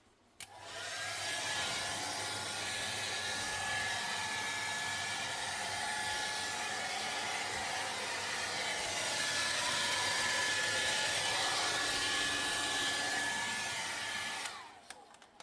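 Fisher & Paykel refrigerator's freezer-side fan motor running with a loud, steady rushing noise and a high whine. The fan motor is faulty, and it makes the whole fridge very noisy. The noise starts about half a second in and cuts off about a second before the end.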